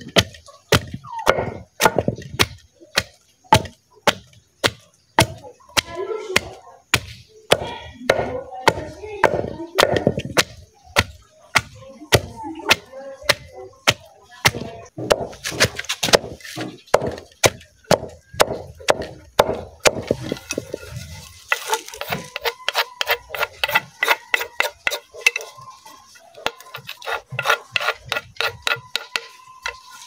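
Wooden pestle pounding fresh turmeric root in a wooden mortar, a steady run of knocks about two or three a second.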